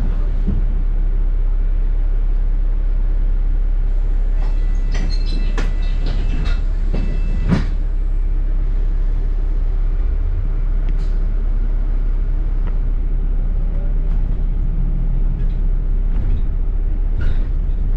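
A double-decker bus running, heard from on board: a steady low drone of engine and road noise, with a cluster of rattles, clicks and a brief high squeal about four to seven seconds in, and a whine that rises in pitch from about ten seconds in.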